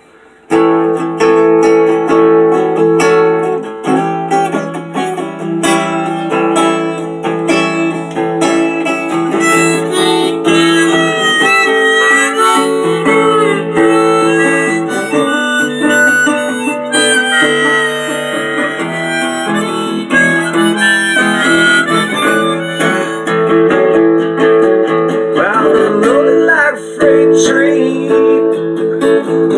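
Music: a harmonica playing held chords and bent notes over guitar, starting abruptly about half a second in.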